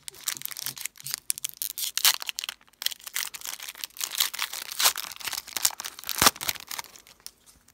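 Foil wrapper of a Donruss basketball card pack crinkling and tearing as it is pulled open by hand: a steady run of sharp crackles and rustles, with the loudest snaps about two, five and six seconds in, dying away near the end.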